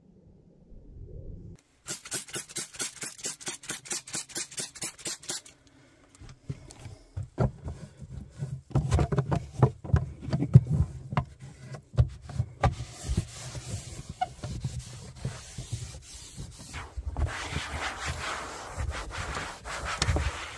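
Hand scrubbing and wiping of surfaces: a run of quick, even scrubbing strokes, about four a second, then scattered knocks and taps, then steadier rubbing and wiping near the end.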